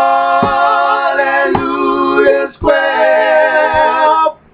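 Male gospel vocal group singing in close harmony, holding long chords on the song's closing line, with a sharp tap on the beat about once a second. The singing stops near the end.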